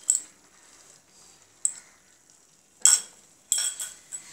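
A metal spoon clinking and scraping against a glass bowl as beaten egg is emptied into a frying pan: several sharp clinks about a second apart, the loudest near three seconds in.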